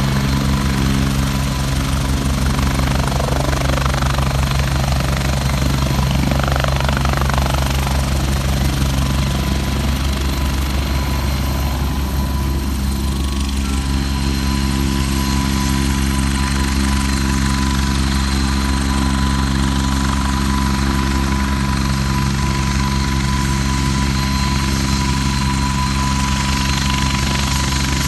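Helicopter running close by: a steady, fast rotor beat with a thin, high, steady turbine whine over it.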